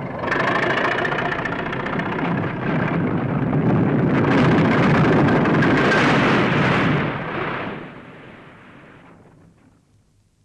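Building demolition: a long, loud rumble of collapsing masonry that starts suddenly, swells for several seconds and then dies away, with an engine running underneath at the start.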